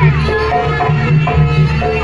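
Live jaranan music from an East Javanese gamelan-style ensemble: a steady drum beat under repeated gong-chime notes.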